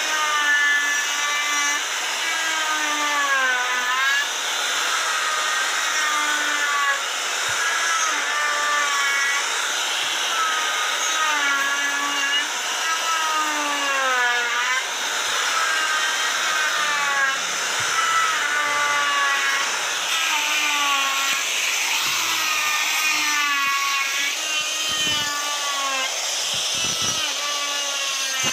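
Electric wood router running at high speed and cutting into a wooden block. Its whine dips in pitch each time the bit bites into the wood and climbs back as the cut eases, over a steady rush of cutting noise.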